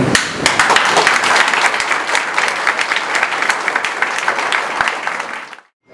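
Audience applauding: many hands clapping in a dense patter that fades quickly to silence near the end.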